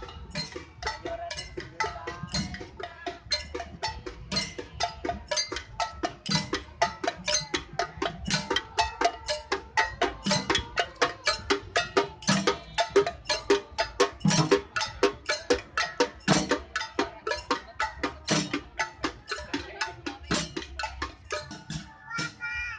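Marching women's percussion group striking hand-held drums and metal pans in a fast, steady beat of sharp knocks, about four a second, with a deeper drum stroke about every two seconds. Near the end, a pitched tune takes over from the strikes.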